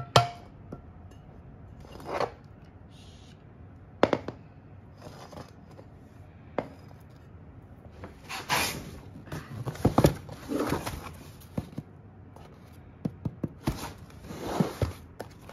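Unboxing handling noises: a sharp click right at the start as a bamboo lid is pressed onto a glass pitcher, then scattered knocks and bursts of rustling, scraping noise as a cardboard box is handled and slid on a wooden floor.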